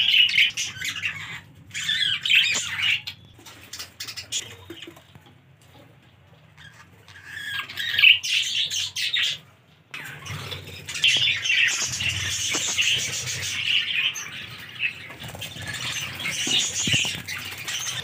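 A colony of budgerigars chattering and chirping, thinning to a few scattered chirps a few seconds in, then a busier chatter of many birds after a brief drop-out about ten seconds in.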